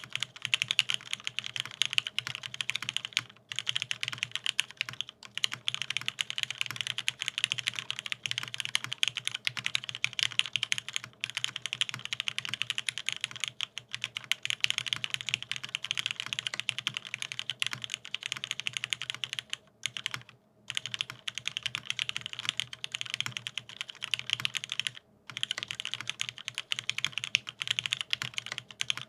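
Continuous fast typing on a mechanical keyboard with lubed vintage Cherry MX Black linear switches, an aluminium plate and Cherry doubleshot-dyesub keycaps, giving a dense run of keystroke clacks with short pauses a few times.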